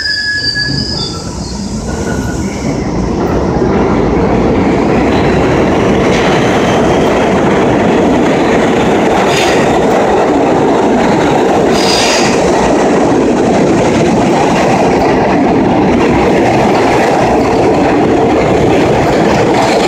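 R68A subway train pulling out of the station and running past. Its noise builds over the first few seconds and then stays steady and loud: wheels rumbling and clattering on the rails, with two brief high wheel squeals about halfway through.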